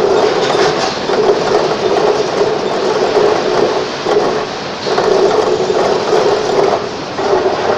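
Steady mechanical running noise with a hum that swells and fades every second or so.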